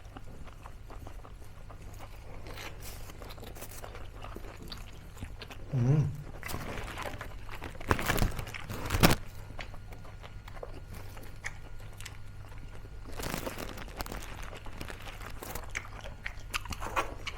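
Close-up crunching and chewing of crispy fried pork mesentery (chicharong bulaklak), with a steady run of small crackles and a few louder crunchy bites about eight to nine seconds in.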